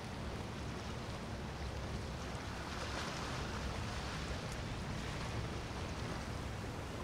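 Steady outdoor noise of wind buffeting the microphone over the sound of water and waves, with a low, uneven rumble and no distinct engine tone.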